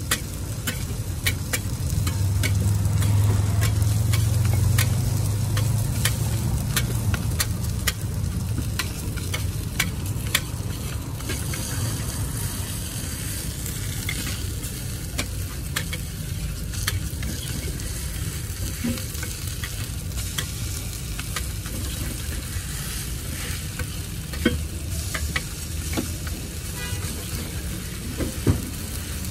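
Meat burger patties sizzling on a flat steel griddle, with a metal spatula clicking and scraping against the plate many times. A low rumble runs through the first few seconds, and near the end a few sharper knocks come as a wire burger press is pushed down on the patties.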